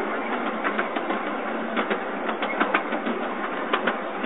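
Small ride-on park train running along its track, heard from aboard: a steady rattling clatter with irregular sharp clicks and knocks.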